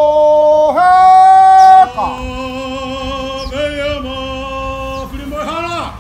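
A single voice singing or chanting long, drawn-out held notes that step from one pitch to another. It is very loud for about the first two seconds, then softer, and ends with a quick falling slide.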